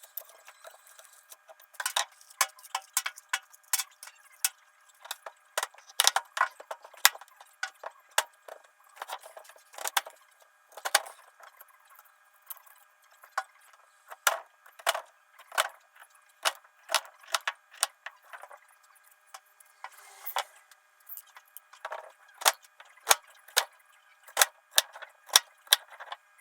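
A long series of sharp, irregular clinks and knocks of small hard objects, sometimes several a second with short pauses between runs.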